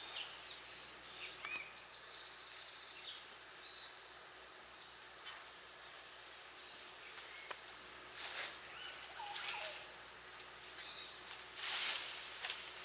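Rural tropical ambience: a steady high-pitched insect drone with a few short bird chirps, and a brief rustle of leafy branches near the end.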